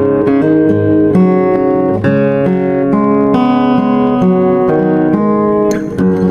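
Kama K4114C 41-inch solid-top acoustic guitar being played, chords picked out note by note with a new note about every half second and the strings ringing on.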